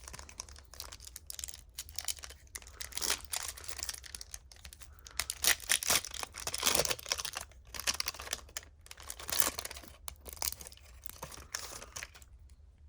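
Trading cards and their foil packaging being handled: irregular crinkling and rustling, loudest about halfway through.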